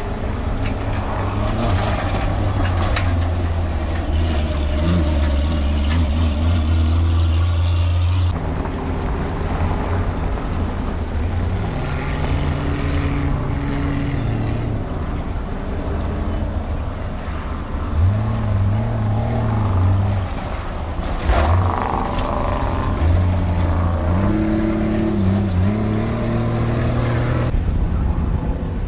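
Off-road race vehicles' engines running hard, their pitch rising and falling as they rev and change gear. The sound changes abruptly about eight seconds in and again about twenty-one seconds in.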